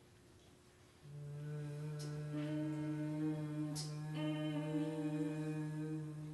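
Women's voices chanting in a long, steady hummed drone of sound poetry, starting about a second in and held at one low pitch, opening into a fuller sung vowel half a second later. Two short hiss-like sounds cross it about two and four seconds in.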